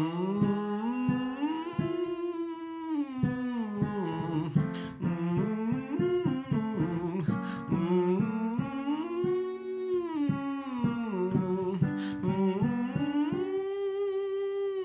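A man humming octave-scale vocal exercises, each run climbing and sliding back down, to connect chest voice and head voice without a break. An instrumental accompaniment plays short chords under the humming.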